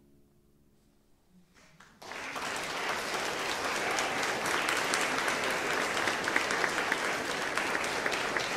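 A concert audience applauding. It breaks out suddenly about two seconds in, after a short hush as the piece ends, and goes on as a dense patter of many hands clapping.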